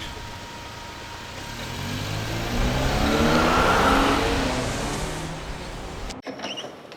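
A car driving past: its engine and road noise swell to a peak about three to four seconds in, then fade as it moves away, and the sound cuts off abruptly near the end.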